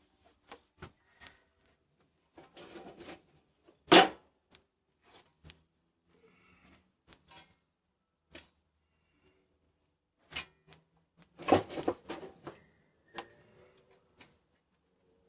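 Firewood pieces and a metal peel knocking and clattering inside a wood-fired oven as the fire is tended, with scattered small clicks. A single sharp knock comes about four seconds in, and a run of knocks follows a little after ten seconds.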